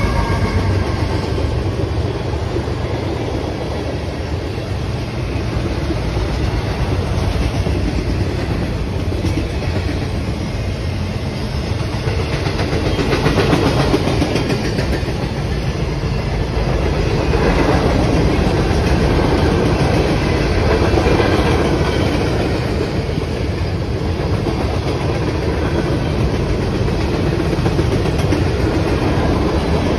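CSX mixed freight train of tank cars, hoppers and boxcars rolling past at speed: a steady rumble of steel wheels on rail with clickety-clack over the rail joints, swelling a little now and then as cars go by.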